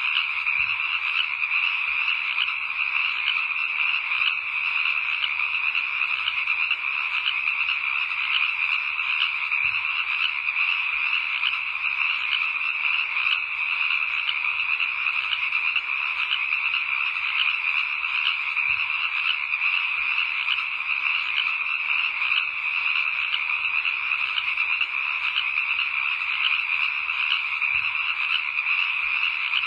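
Steady night-time chorus of calling frogs, dense and unbroken, with a faint low thump about every nine seconds.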